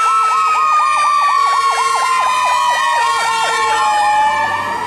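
Fire truck sirens: an electronic siren yelping about four times a second over a second siren's steady wail that slowly falls in pitch. The truck's engine rumble comes up near the end as it passes.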